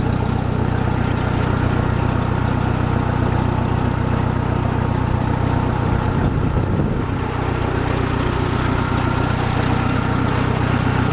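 Case 430 farm tractor engine running steadily, with a brief slight drop in level about seven seconds in.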